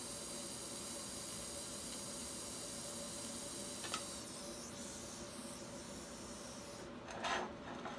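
TIG welding arc on stainless steel: a steady hiss with a faint high whine, cutting off with a click about four seconds in. A softer hiss of the torch's shielding gas carries on for a few seconds after the arc stops, then a single knock near the end.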